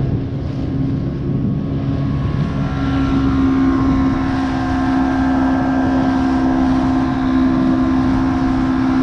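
Small outboard motor pushing an inflatable boat along at speed, a steady engine drone that grows louder about three seconds in.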